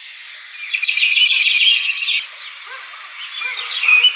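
Birdsong alarm tone of the Alarmy app playing from a smartphone's speaker, the 7:30 wake-up alarm going off: chirps, with a loud rapid trill about a second in.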